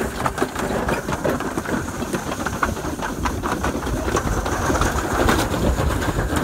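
Toboggan sled running fast down a metal half-pipe chute: a steady rolling rumble with rapid clattering knocks from the sled on the track.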